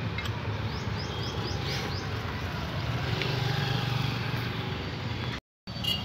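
Mahindra Xylo's diesel engine idling steadily, with a quick run of short high chirps about a second in. The sound cuts out for a moment near the end.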